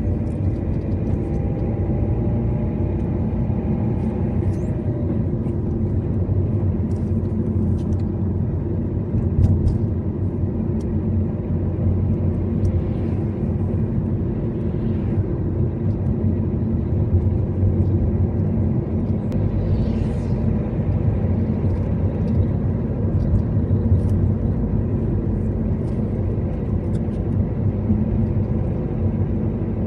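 A car's engine and road noise while driving, a steady low rumble that holds even throughout.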